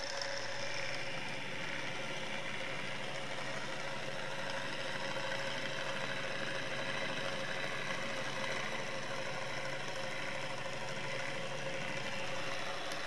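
Small DC motor spinning the belts, pulleys, fan and flywheel of a 1:6 scale 426 Hemi model engine, running at a steady speed with an even whir and hum.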